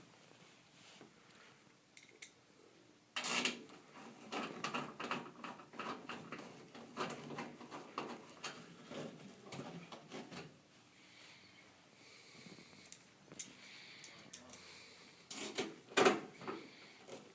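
Clicks and rattles of a screwdriver and the range hood's stainless steel front panel as the two side screws are driven back in. There is a long run of handling from about three seconds in to ten seconds, and a short, louder cluster near the end.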